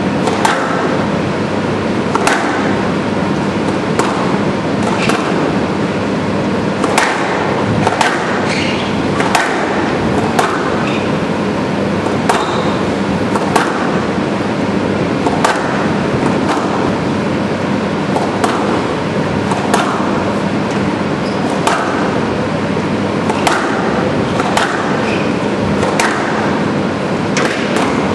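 Squash rally: sharp cracks of the ball off the racket and the walls, coming irregularly about once a second, over a steady background hum and hiss.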